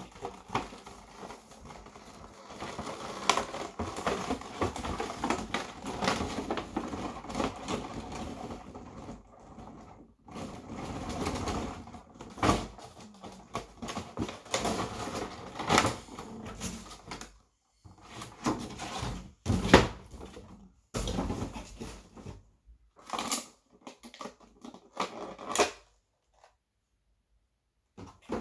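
Cardboard box and plastic packaging of a Funko Pop figure being handled, rustling and clicking irregularly as the figure is taken out. The handling noise stops a couple of seconds before the end.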